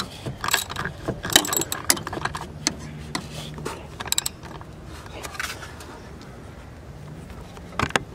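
Socket ratchet clicking in short bursts of rapid strokes as a small bolt is tightened against a spanner. The bursts thin out in the second half, with one sharp click near the end.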